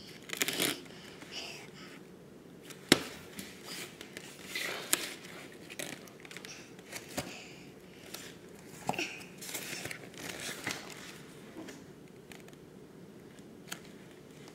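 Quiet play noises from a toddler close to the microphone: scattered small clicks and soft rustles, with a brief soft vocal sound about nine seconds in.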